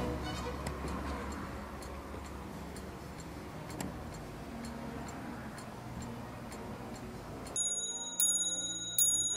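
Antique French clock movement ticking faintly, then striking its dome bell near the end, a stroke about every second, each left ringing.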